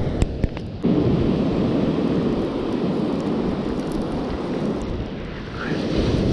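Wind buffeting the microphone at the shoreline, a heavy low rumble mixed with the wash of breaking surf; it comes in suddenly about a second in, after a few light clicks.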